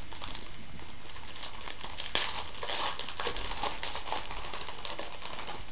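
Foil trading-card pack wrapper crinkling while cards are handled: a continuous crackle of many small clicks.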